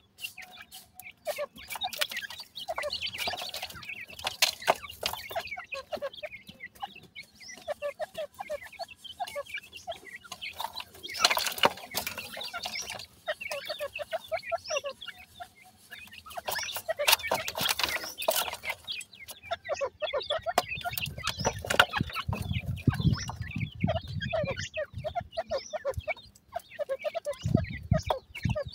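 Young francolins clucking and peeping in short, repeated calls while pecking and scratching in loose soil, with clicks and bursts of scratchy rustling. A low rumble comes in about two-thirds through and again near the end.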